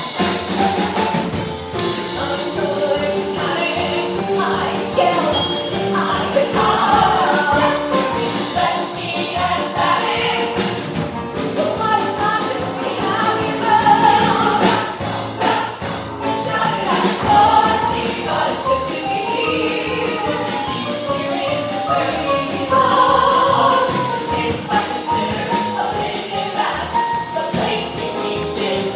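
Several voices singing together over musical accompaniment with a steady beat.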